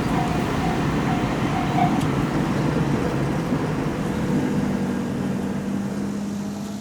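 Japanese level-crossing warning bell ringing in an even, repeated 'kan-kan' until about two seconds in, over the steady rolling noise of a train passing the crossing. A steady hum joins about four seconds in, and the sound fades near the end.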